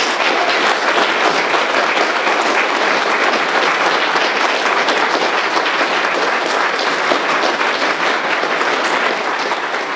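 A small group of people clapping their hands in steady, lively applause.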